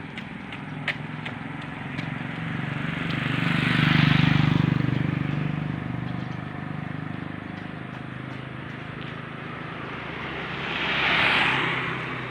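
Two motor vehicles passing close by one after another, each swelling up and fading away: the first, about four seconds in, with a strong engine hum; the second, near the end, mostly tyre and road hiss.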